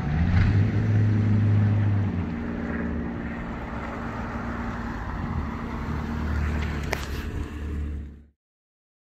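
Chevy Camaro 3.6-litre V6 through a Magnaflow axle-back Race Series exhaust in a drive-by. The exhaust note swells loud for about two seconds, settles to a steadier, quieter run, then grows again as the car nears. There is a single sharp snap about seven seconds in, and the sound cuts off suddenly just before the end.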